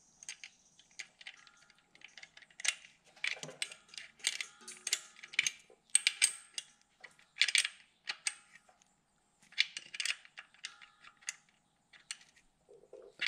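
Small metal wrench clicking and clinking on the bleed valve of a clutch slave cylinder, in irregular bursts of sharp clicks, as the valve is closed after gravity-bleeding the clutch hydraulics.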